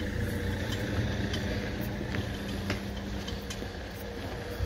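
Footsteps on a pavement, a faint click about every half second, over a low outdoor rumble with a steady hum.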